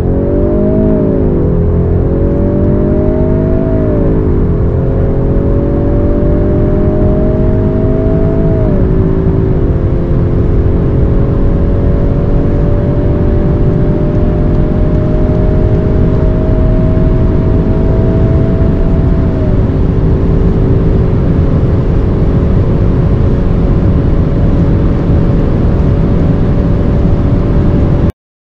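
Two turbocharged four-cylinder engines, a VW Golf R Mk8 and an Audi S3 saloon, pulling at full throttle from inside the cabin, their sounds mixed together. The engine note climbs slowly through each gear and drops at each upshift, about a second, four seconds, nine seconds and twenty seconds in, with the gears getting longer as speed builds. Heavy road and wind roar sits underneath, and everything cuts off suddenly near the end.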